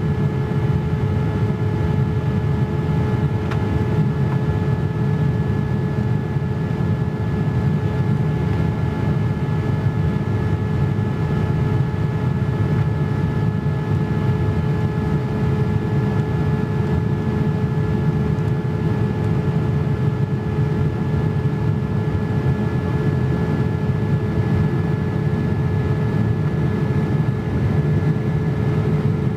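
Steady in-flight cabin noise of a Boeing 787-8 heard from a window seat over the wing: a low rumble of its Rolls-Royce Trent 1000 engines and the airflow, with a few faint steady hums above it.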